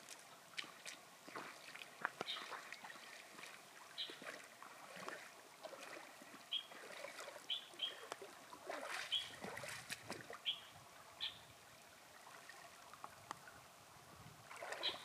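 Short, high bird chirps scattered over the faint trickle of a shallow stream, with a few sharp splashes of rubber boots wading through the water.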